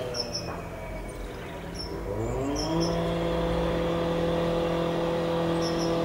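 An engine's hum that rises in pitch about two seconds in and then holds steady, with a few faint, high bird chirps over it.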